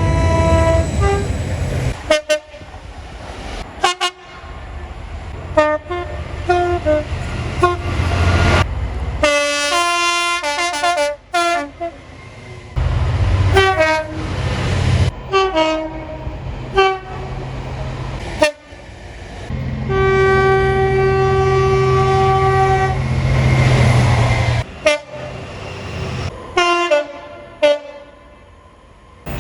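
British train horns sounding a string of short blasts at changing pitches, heard in a quick run of separate clips with abrupt cuts between them. One long, steady horn note is held for about three seconds near the two-thirds mark. A low rumble underlies several of the clips.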